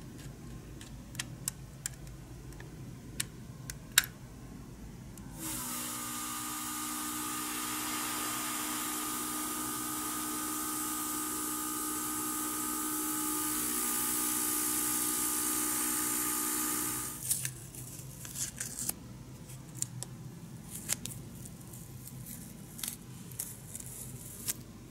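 Airbrush spraying paint: a steady hiss of air over a steady hum, starting about five seconds in and cutting off suddenly after about twelve seconds. Before and after it, small sharp clicks of plastic model parts being handled.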